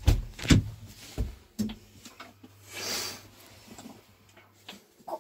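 Clunks and knocks from handling things in a tractor cab, several in the first two seconds, then a short hiss near the middle and a faint low hum that stops shortly before the end.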